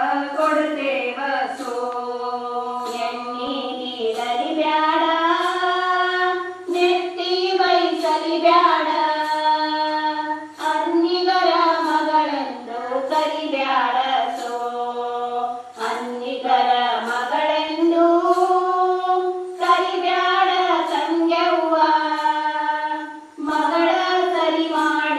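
Women singing a shobana pada, a traditional North Karnataka Kannada wedding folk song, together in long drawn-out phrases that glide between notes, with short breaks every few seconds.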